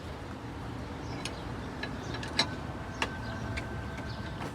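Spare-tyre winch being cranked with a jack-handle rod, giving sharp clicks roughly every half second or so, starting about a second in.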